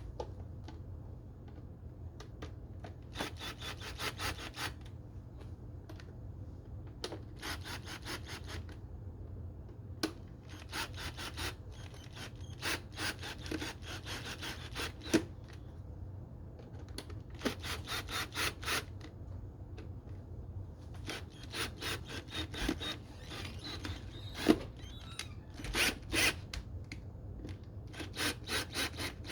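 Ratchet tool driving the intake's mounting screws: repeated spells of rapid, even clicking, each a second or two long, with a few sharper single knocks between them.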